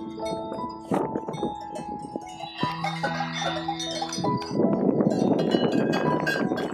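Cowbells on grazing livestock clanking irregularly, several bells at different pitches ringing over one another. There is a stretch of rustling noise partway through.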